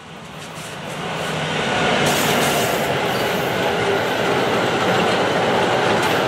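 Freight train of double-deck car-carrier wagons, hauled by an electric locomotive, passing close by. The rumble and hiss of wheels on rails grow louder over the first two seconds, then run steadily as the wagons go past, with a thin steady tone running through the wheel noise.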